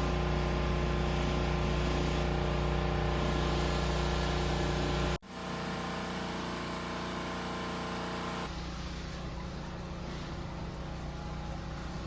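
Steady mechanical hum with a deep low drone and several steady tones. It cuts off sharply about five seconds in, resumes, and drops to a thinner, quieter hum near the end.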